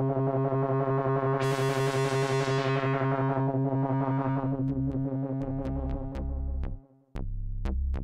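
Behringer UB-Xa analog polyphonic synthesizer playing a held, evenly pulsing low chord. About a second and a half in, the sound turns sharply bright, then darkens and fades away. Near the end a choppy low pulsing pattern with sharp clicks takes over, broken by a brief gap.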